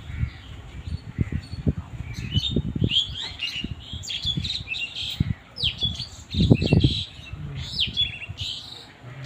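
Birds chirping: many short, high chirps that slide downward, beginning about two seconds in, over a run of low irregular thumps, the loudest about two-thirds of the way through.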